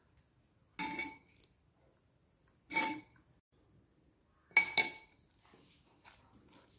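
Metal spoon clinking against a ceramic dish three times, spaced about two seconds apart, the last a quick double knock; each strike rings briefly.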